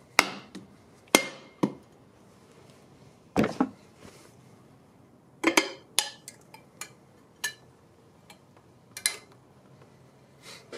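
Soft hammer tapping the side of a Harley-Davidson Milwaukee-Eight's cam chest cover to break it loose: about ten sharp knocks and clinks, irregularly spaced, some ringing briefly.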